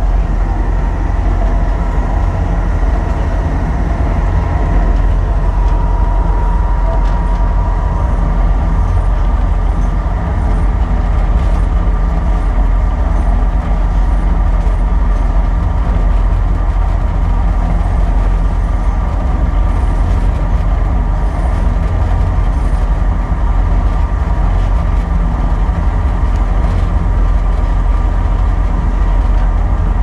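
Elevator car travelling: a loud, steady low rumble with a few steady whining tones over it, unchanging throughout.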